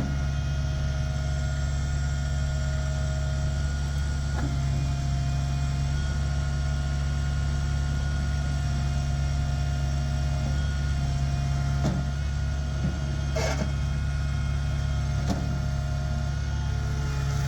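Bobcat S70 skid steer loader's Kubota three-cylinder diesel engine running steadily, with a few short knocks along the way.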